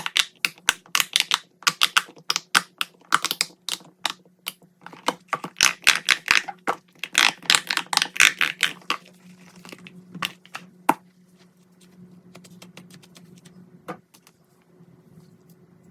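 Plastic fidget toys clicking and popping under fingers in rapid, dense clicks. The clicks thin out after about nine seconds, leaving a few single clicks over a faint steady hum.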